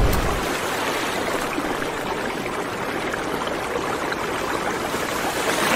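A deep rumble fades out in the first half second, leaving a steady rushing noise like running water.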